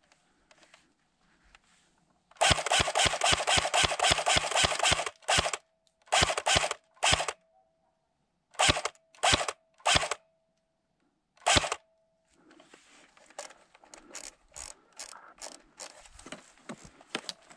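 Airsoft rifle firing: one rapid burst lasting about two and a half seconds, then about eight short bursts over the next several seconds, followed by fainter clicks and rustling.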